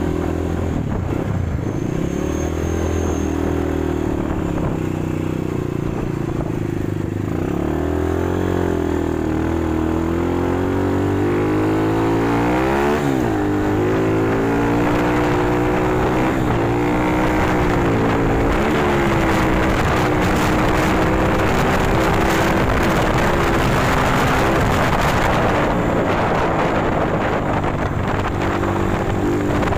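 Viar Cross X 200 ES dirt bike's single-cylinder four-stroke engine with an aftermarket GP7 exhaust, pulling under way: the engine note climbs as it accelerates and drops back at each gear change, with a sharp rise and fall a little before halfway and several shorter climbs after it. Wind rush grows as the speed builds through the middle.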